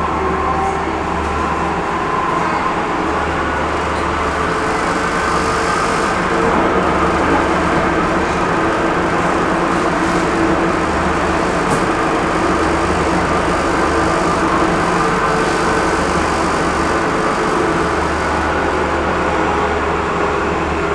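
A light-rail tram running at speed, heard from inside the car: a steady rumble of wheels on the rails with a constant hum.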